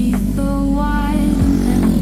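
Background music: a wordless passage of a song, with a sustained low bass and a short melodic phrase.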